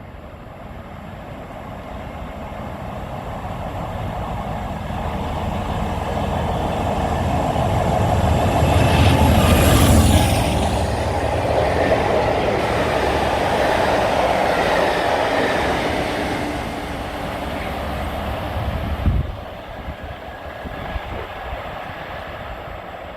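Class 47 diesel locomotive 47614, with its twelve-cylinder Sulzer engine, approaching and passing under power. The engine noise builds to its loudest about ten seconds in, then the coaches roll past with wheel clatter until the sound falls away near the end.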